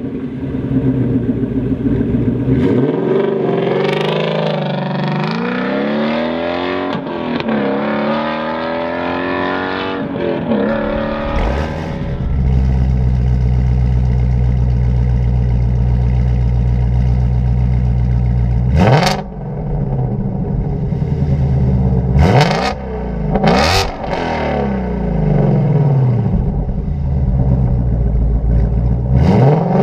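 Ford Mustang GT350's 5.2-litre flat-plane-crank V8 through a Corsa 3-inch cat-back exhaust with double X-pipe, revving up and down several times. About halfway through it settles into a steady held note, then is blipped sharply three times, the last rev falling away slowly near the end.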